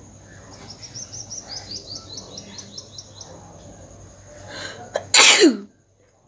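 A woman sneezes once near the end: a short build-up of breath, then a loud burst that drops sharply in pitch and cuts off abruptly. Before it, a bird chirps in a quick run of short, high chirps.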